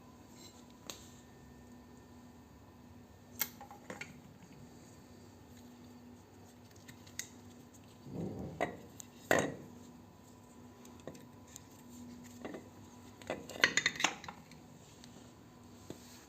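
Metal scrap parts clinking and clanking as they are handled: a single clink, then a short clatter with two sharp knocks in the middle, and a quick cluster of clinks near the end.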